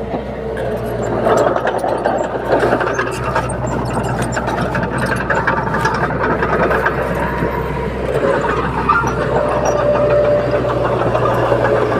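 Diesel engine of a Komatsu D21P small crawler bulldozer running steadily while it works, with many short metallic clicks and clanks over it.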